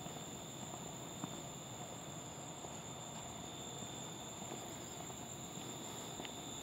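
Steady high-pitched chorus of night insects such as crickets, holding two unchanging pitches, with a few faint ticks.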